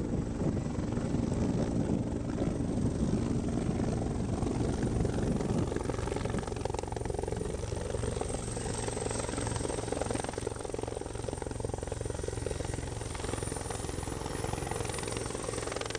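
Firefighting helicopter flying low with its water snorkel hanging: a steady rotor beat with a thin high whine above it.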